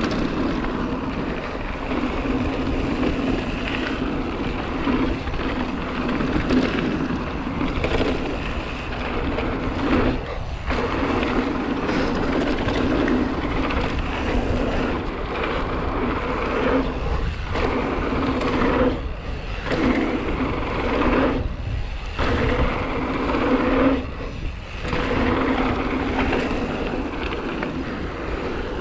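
Hardtail mountain bike's rear freehub buzzing as it coasts, over tyre rumble on a hard-packed gravel track. The buzz drops out briefly about five times in the second half, which is what happens when the rider pedals and the freehub engages.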